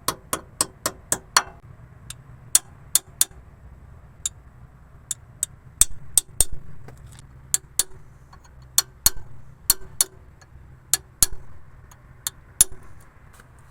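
Hammer blows on metal: a quick, even run of about three strikes a second that stops about a second and a half in, then slower, irregular single and paired strikes. A faint low hum runs underneath.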